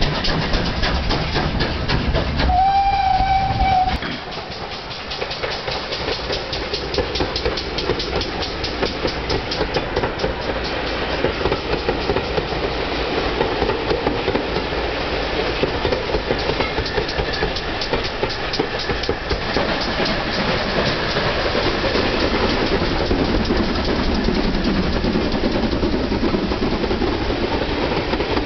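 Steam locomotive whistle: one short, steady note about two and a half seconds in. Then a steam-hauled passenger train runs past, its wheels clicking rhythmically over the rail joints.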